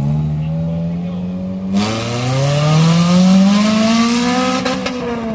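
Acura RSX's four-cylinder engine revving hard as the car accelerates away. The pitch climbs for about three seconds and then drops. A loud rushing noise cuts in about two seconds in, as the car pulls harder.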